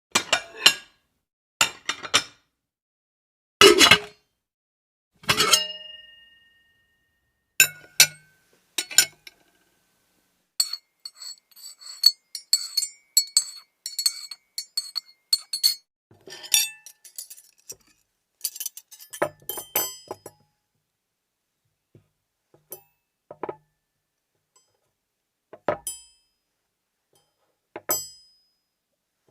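Plates clinking and knocking: a string of separate strikes, a couple of them ringing on briefly, with a quick run of small rattling clinks around the middle.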